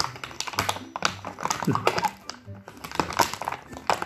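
Plastic cat-food bag crinkling in quick, irregular crackles as a cat bites and tugs at it, over background music.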